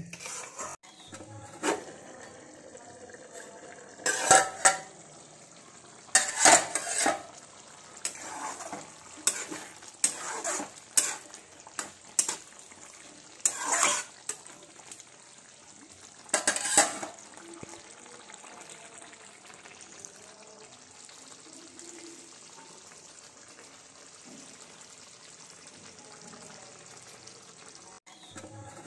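Metal spatula scraping and knocking against a steel kadai while chicken in masala is stirred, over a steady sizzle of the curry frying. The stirring stops about two-thirds of the way through and only the sizzle goes on, with one short clank near the end.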